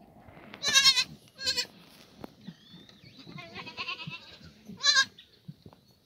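Black goats bleating: loud, high, wavering bleats about a second in, again half a second later and near the end, with fainter bleats in between.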